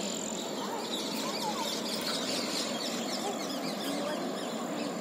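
Many small birds chirping in the trees over a steady outdoor noise.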